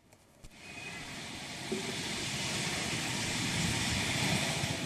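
Heavy rain and traffic on a waterlogged road: a steady hiss with a low vehicle rumble beneath it, fading in about half a second in and growing louder.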